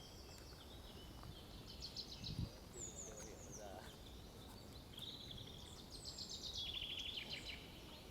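Songbirds singing faintly: quick chirps and rattling trills, some with falling notes, busiest in the second half. A dull thump about two and a half seconds in.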